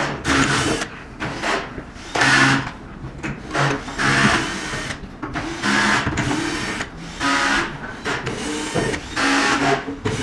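Electric screwdriver backing out the screws that hold an IGBT board, whirring in many short stop-start bursts.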